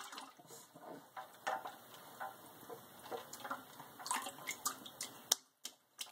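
A baby splashing the water with his hands in a stainless-steel kitchen sink: irregular small splashes and drips, with a couple of sharp clicks near the end.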